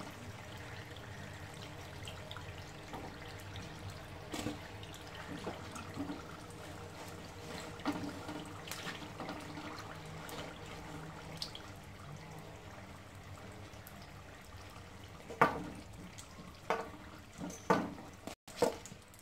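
Samosas frying in shallow oil on a low flame, a steady sizzle, with scattered light clicks of a slotted spoon in the pan. A few louder knocks near the end as the samosas are lifted out.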